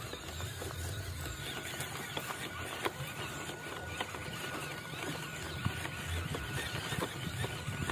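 A WPL C54 RC crawler driving over rocks: its small electric motor and gearbox give a steady whine that comes in about a second in, with scattered sharp clicks of the tyres and chassis knocking on stones.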